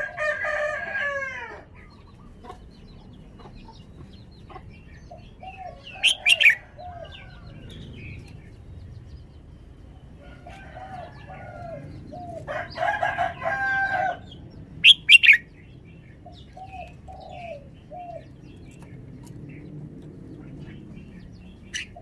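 Caged red-whiskered bulbul singing in short, separate phrases: a rich warbled phrase at the start and another about two-thirds through, with sharp high notes around a quarter and two-thirds of the way in and softer, lower repeated notes between them.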